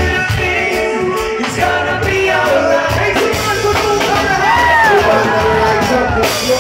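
Live reggae band playing amplified, with electric guitars and a pulsing bass line under a male lead singer on a microphone.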